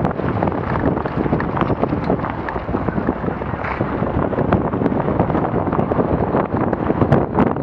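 Car driving along a dusty, unpaved gravel lane: a steady rumble of tyres on the loose surface with wind buffeting the microphone outside the car, and many small clicks of stones.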